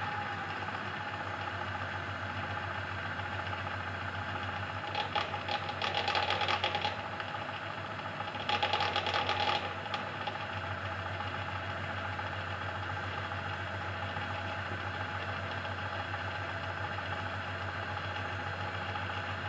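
Variable-speed belt variator drive running steadily with a hum, broken by two spells of rattling, about five and about eight and a half seconds in, each lasting one to two seconds. The rattle is the only one left at the very low end of the speed range after the variator belts were adjusted, with the drive running without oil.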